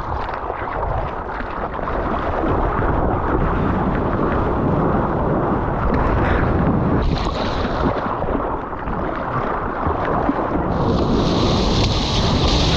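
Wind and rushing water on a GoPro action camera's microphone as a surfer paddles into and rides a small wave: a steady, rough rush, with a louder hiss of whitewater spray near the end.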